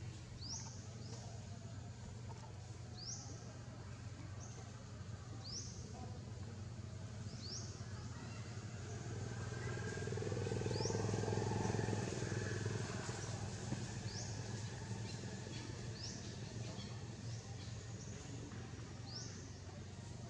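Outdoor ambience: short high chirps that rise in pitch, repeating every second or two, over a steady low hum. The hum swells louder for a few seconds near the middle, then fades back.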